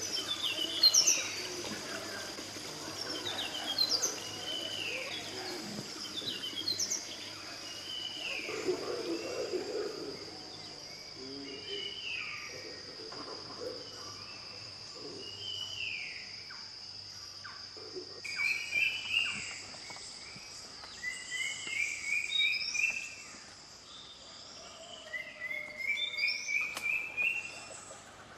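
Forest birds calling over a steady high-pitched insect drone: a falling call repeats every couple of seconds, and quick rising trills come in during the second half.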